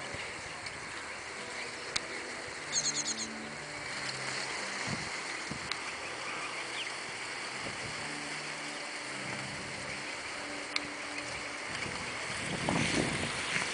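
Outdoor ambience with wind on the microphone and a low hum that comes and goes, a short rapid run of high chirps about three seconds in, and rustling that grows louder near the end.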